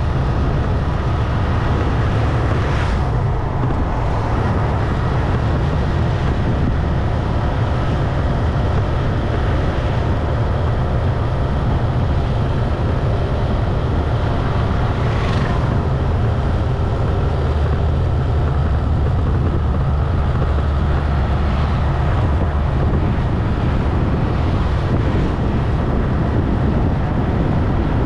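Motorcycle riding steadily along a road: a continuous low rumble of engine and tyres with wind buffeting the microphone.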